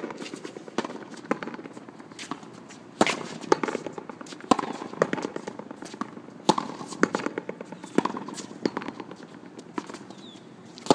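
A frontón rally: sharp smacks of the ball struck by rackets and rebounding off the wall, many hits at uneven intervals, the loudest in the middle of the rally.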